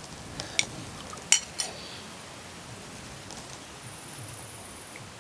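Cutlery clinking against dishes during a meal: four sharp clinks in the first two seconds, the third the loudest.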